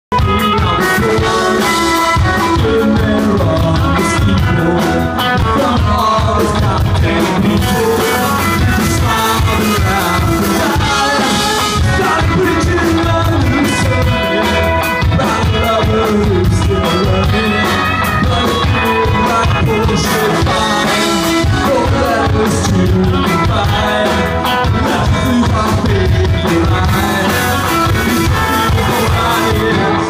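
Indie rock band playing live with electric guitars, bass guitar and drum kit, loud and steady throughout.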